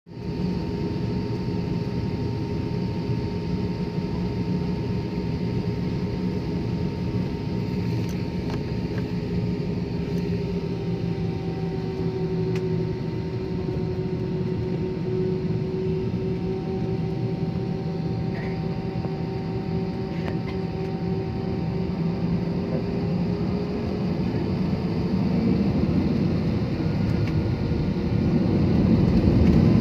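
Jet airliner's engines heard from inside the passenger cabin while on the ground: a steady hum with a few held tones, one drifting slowly down and back up. It grows louder over the last few seconds.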